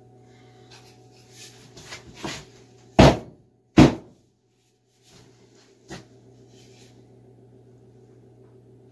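Knocks from the axe and its handle being handled: softer knocks and rustling, then two loud sharp knocks less than a second apart, and one more knock a couple of seconds later.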